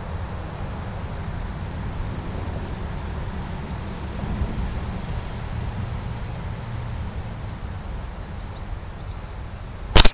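A steady low rumble with a few faint high chirps, then about ten seconds in a single sharp shot from a QB78 .22 CO2-powered air rifle firing a pellet.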